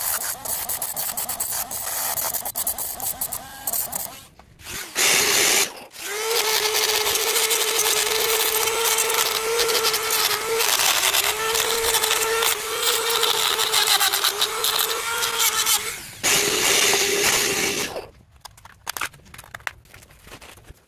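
Small handheld power tool cutting through battery cell busbars: a loud hiss with a steady motor whine. It pauses briefly twice near the start and stops about 18 seconds in, leaving a few light clicks.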